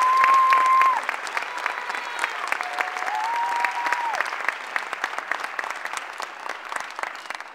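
Audience applauding, with two long held whoops over the clapping, one at the start and one in the middle. The clapping thins out and fades near the end.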